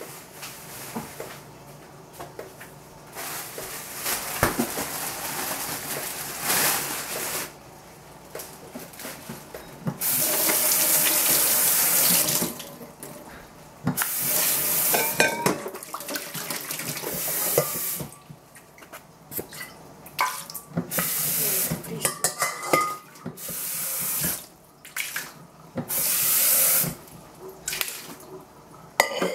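Kitchen tap running into a sink in repeated spells of a few seconds each, the water turned on and off, with short knocks and clinks in between.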